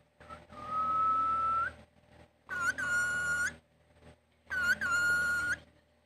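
Indian ringneck parakeet whistling: three long, level whistles, each about a second, with short pauses between them. The second and third are shriller than the first.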